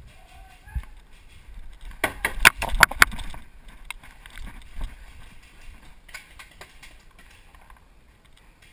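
A quick burst of about six sharp paintball-fire cracks packed into about a second, a couple of seconds in. Quieter scattered knocks and rustling follow.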